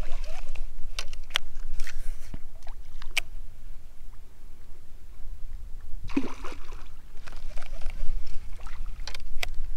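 Water sloshing and splashing against a paddleboard's hull, with a steady low rumble and scattered sharp clicks.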